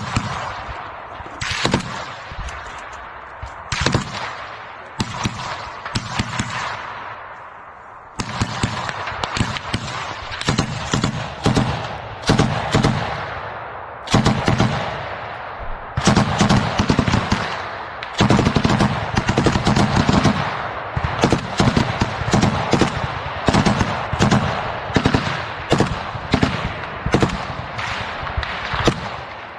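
Close-range automatic gunfire from a machine gun and rifles in a firefight, with each shot echoing through the forest. Scattered shots for the first several seconds give way to repeated rapid bursts, with a brief lull about halfway through.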